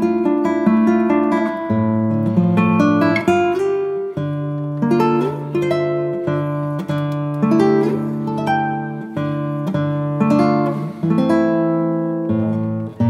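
Background music: a plucked acoustic guitar playing a slow run of notes over held bass notes.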